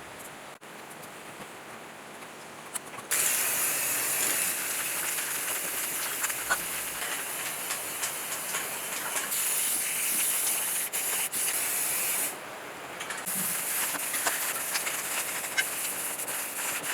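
Loud, steady hiss of a pressurised spray, in two long spells: one of about nine seconds, then a short pause, then another of about four seconds.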